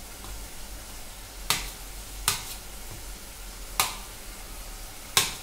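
Metal spoon clinking against a steel plate while mashing boiled potatoes: four sharp clinks spread through the few seconds, over a faint steady hiss.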